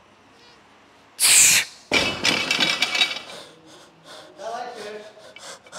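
The end of a heavy sumo deadlift set. About a second in comes a sudden loud burst, followed by a second or so of rattling and clattering, then strained voice sounds and hard breathing.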